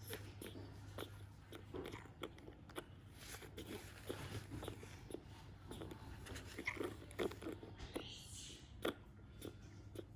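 A small pet monkey chewing and crunching food: many short, irregular crunches and clicks, over a steady low hum.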